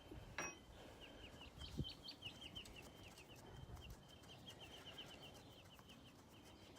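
Faint bird chirping: a rapid run of short, high notes, several a second, repeated over several seconds. A single sharp click comes about half a second in.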